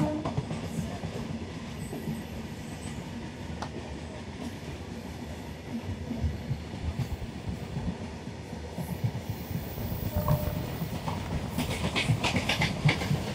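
Express passenger train rolling along the tracks, heard from aboard: a steady rumble with irregular wheel knocks over the rail joints. Near the end comes a cluster of sharper metallic clicks and squeals from the wheels.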